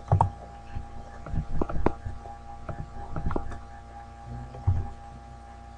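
Computer mouse clicking several times at irregular intervals, a few in quick succession, over a steady electrical hum on the microphone.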